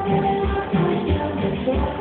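Cumbia music played loud over a sonidero sound system: a melody over a steady bass beat of about three pulses a second.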